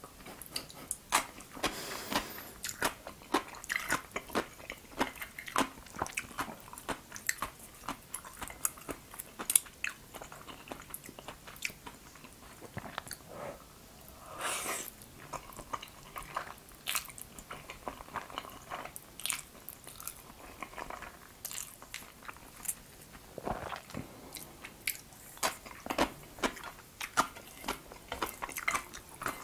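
Close-miked eating sounds: crisp crunching bites and chewing of pickled yellow radish, then a long wet slurp of jajangmyeon noodles in black bean sauce about halfway through, followed by more chewing.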